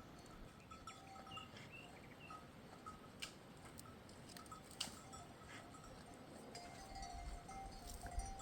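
Bells on a grazing flock of sheep and goats clinking faintly and irregularly, with two sharp clicks partway through.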